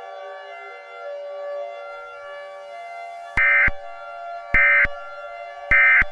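Three short bursts of Emergency Alert System data tones, evenly spaced a little over a second apart: the End of Message code that closes an alert. They play over a steady, siren-like electronic drone.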